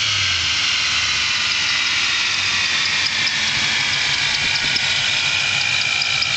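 Supercharged Roush Stage 2 Mustang's 4.6-litre three-valve V8 coming down from a rev and idling, settling about a second in, with a steady high whine over the engine note.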